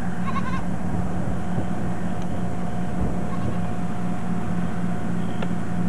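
A steady low mechanical hum, with a short faint animal call about half a second in.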